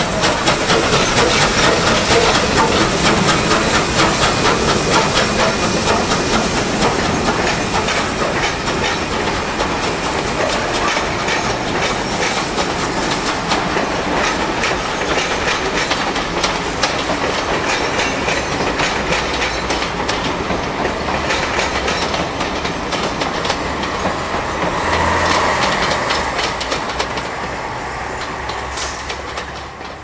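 Steam-hauled passenger train behind NSW C38 class Pacific 3830 running past and away: a steady clatter of carriage wheels clicking over rail joints, easing off toward the end as the train draws into the distance.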